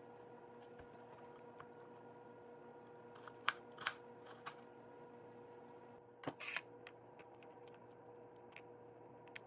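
Kitchen knife cutting vegetables on a wooden cutting board: scattered sharp taps, a louder cluster of quick cuts a little after six seconds in, over a faint steady hum.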